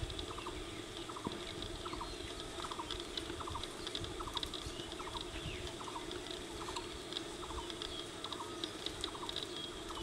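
A short rattling call of two to four quick pulses, repeated steadily about one and a half times a second, over scattered faint high chirps.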